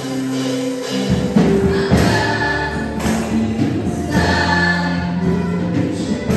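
Live church praise music: a group of women singing a Malay-language worship song with keyboard and band accompaniment and tambourines shaken by dancers. The band's low end and beat come in about a second in.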